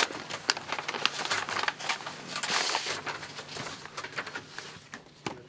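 Paper rustling and crinkling as envelopes of proposals are opened and their pages handled, with scattered small clicks and taps; the rustling thins out over the last second or two.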